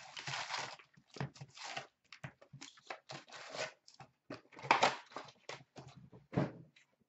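Plastic shrink-wrap crinkling and a cardboard card box rustling as a sealed hobby box is unwrapped and opened, in a string of irregular short bursts, the loudest a little before five seconds in.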